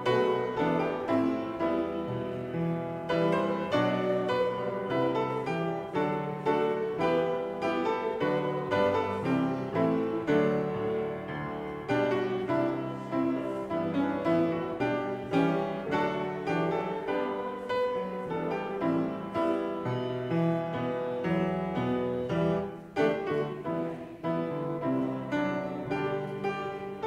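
Piano playing the accompaniment to a hymn in steady, even chords.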